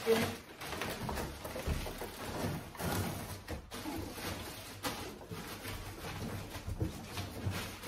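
Plastic wrapping rustling and crinkling and cardboard scraping as an item is pulled out of a box, with irregular crackles and a sharper knock just after the start.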